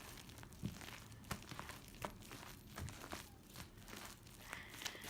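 Fluffy slime being squished and stretched by hand, giving a faint string of irregular soft clicks and pops.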